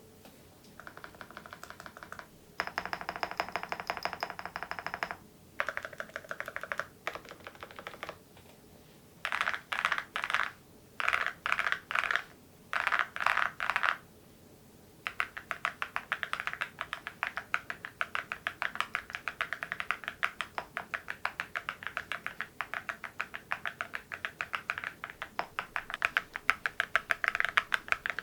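Typing on an MZ Y3 mechanical keyboard fitted with ceramic keycaps, each keystroke a sharp clack. Short bursts of rapid keystrokes with pauses between them give way about halfway through to steady, fast continuous typing.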